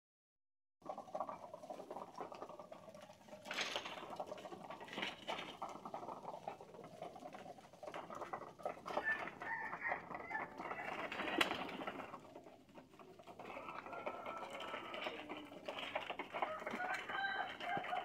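A flock of domestic pigeons cooing steadily while feeding, starting about a second in, with many scattered sharp clicks of beaks pecking at the ground and dish.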